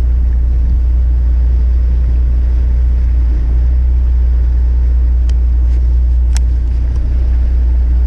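Fishing boat's engine running with a steady low rumble, with a couple of faint sharp clicks about five and six seconds in.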